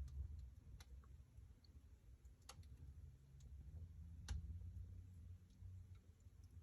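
Wood fire in a fireplace crackling faintly: a few scattered sharp pops, the loudest about two and a half and four seconds in, over a low steady rumble.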